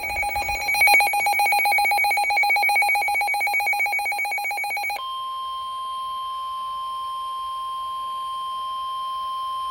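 Emergency alert tones: a loud, rapidly pulsing electronic alarm for about five seconds, then an abrupt switch to a single steady tone, the National Weather Service's 1050 Hz warning alert tone announcing a severe thunderstorm warning.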